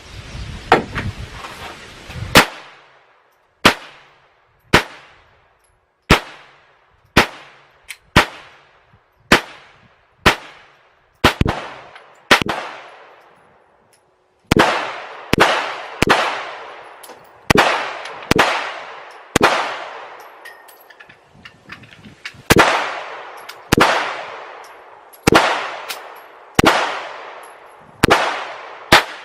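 Gunfire at a shooting range: a long string of single shots, about one a second, each followed by a ringing echo tail. There is a short break in the shooting about 13 seconds in.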